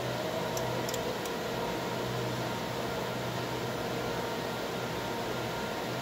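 Steady low hum and hiss of background machinery, with a few faint small clicks about a second in as telephone wires are twisted together.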